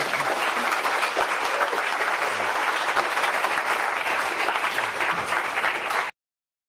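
Audience applauding: a dense, steady clatter of many people clapping, cut off suddenly about six seconds in.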